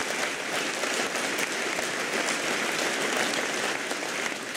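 A large crowd of students applauding, a dense, steady clapping that eases slightly near the end.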